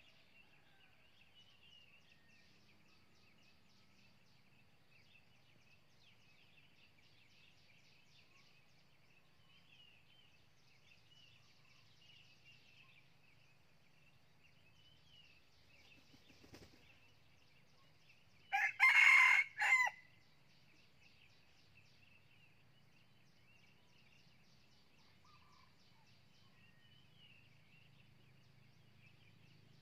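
Red junglefowl rooster crowing once, about two-thirds of the way in. It is a short, clipped crow broken into a few parts and lasting about a second and a half. Faint high chirping runs under it throughout.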